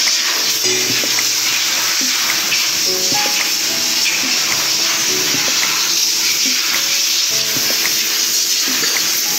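Background music with held notes that change every second or so, over a steady high hiss.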